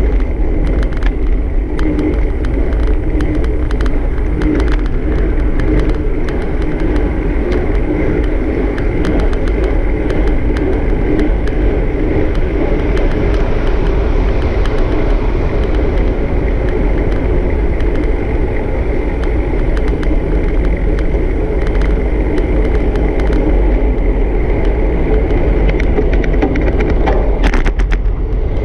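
Steady rolling road noise and wind on the microphone from a vehicle moving along a street: a constant low rumble with many small ticks and knocks from the road surface.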